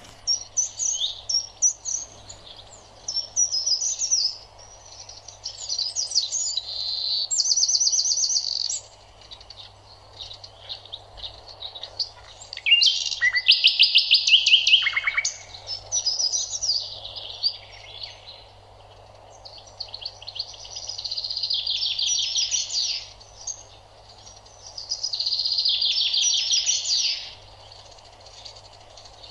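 A songbird singing in long phrases of varied high chirps and fast trills of rapidly repeated notes, with short pauses between phrases.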